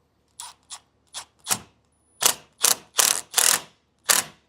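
Power drill driving a screw into a plastic grille corner piece in a run of short trigger bursts, the bursts growing longer and louder from about two seconds in as the screw is snugged down.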